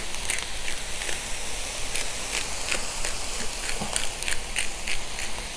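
Sliced onions, bell peppers, mushrooms and water chestnuts sizzling in oil on a hot Blackstone flat-top griddle, a steady hiss with frequent short crackles.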